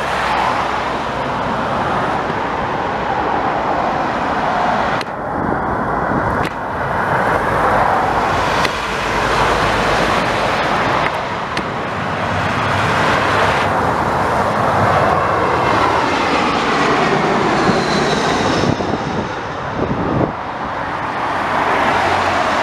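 Jet engines of a British Airways Airbus A319 on final approach, passing low overhead, mixed with gusty storm wind buffeting the microphone. A faint whine glides downward late on as the jet goes past.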